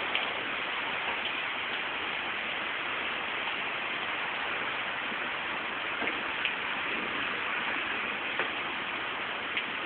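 Heavy rain falling steadily, an even hiss with a few scattered sharper drip ticks.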